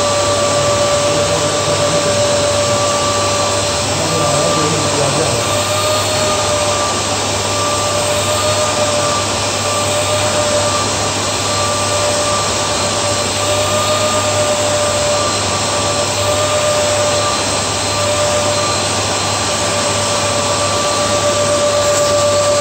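Electric blower being used to blow-dry hair, running steadily: a loud rush of air with a constant motor whine.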